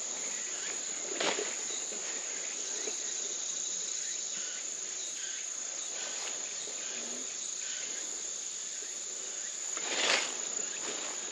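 A steady, high-pitched chorus of singing insects, unbroken throughout. Brief rustles of brushing through leafy undergrowth come about a second in and again near the end.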